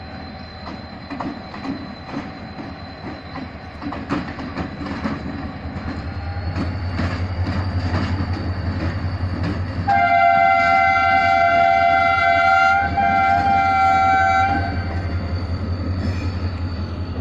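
GE diesel-electric locomotive hauling a freight train, its low engine drone growing louder, with wheels clicking over rail joints. About ten seconds in, the locomotive's air horn sounds a chord of several tones for about five seconds.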